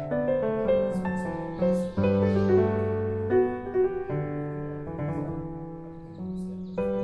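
Background piano music: single notes and chords struck one after another, fading a little before a new chord near the end.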